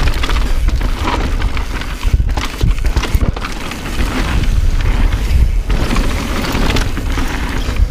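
Mountain bike riding fast down a dirt trail: wind buffeting the microphone as a heavy rumble, with tyres rolling over dirt and the bike rattling and knocking over bumps.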